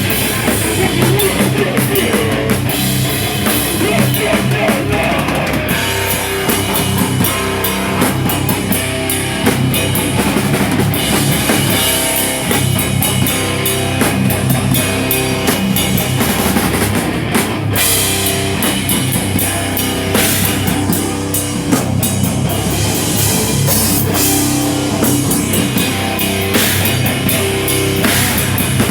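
Rock band playing live with loud drum kit, distorted guitar and bass.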